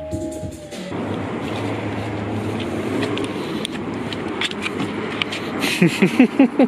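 Street traffic: a car driving past close by, a steady hum of engine and tyre noise. Near the end, a short burst of men's voices.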